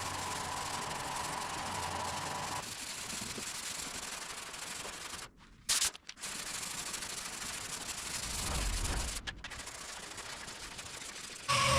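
Sanding on primed car body panels, a steady rubbing hiss with a faint whine during the first couple of seconds. The sound breaks off suddenly a few times, as if the footage is cut.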